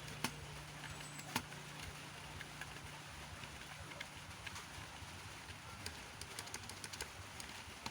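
Computer keyboard keystrokes: scattered single key clicks, then a quick run of rapid keystrokes about six seconds in. A low steady hum underneath stops about a second and a half in.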